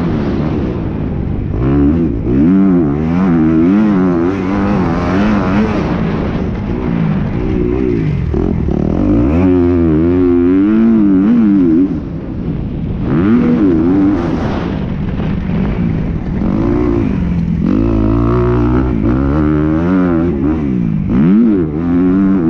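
Motocross bike engine revving up and down as it is ridden around a dirt track, the pitch climbing and dropping every second or two as the rider works the throttle and gears. The throttle is briefly chopped about halfway through.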